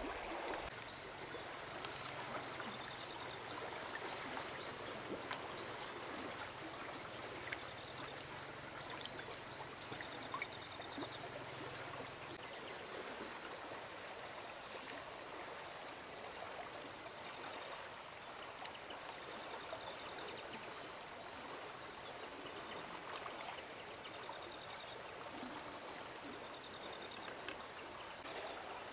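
Shallow river water flowing steadily over a pebble bed, an even rush of running water, with faint high chirps now and then.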